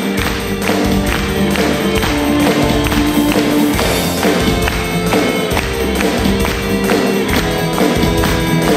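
Live band playing an instrumental introduction with a steady beat, before the singing begins.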